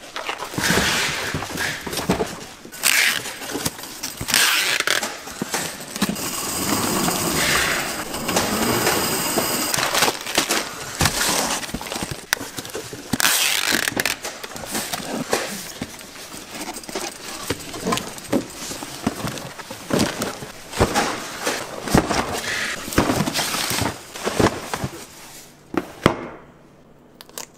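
Irregular clattering and clinking of hard objects, with many sharp knocks over a busy noisy din. It falls away to a quieter hum near the end.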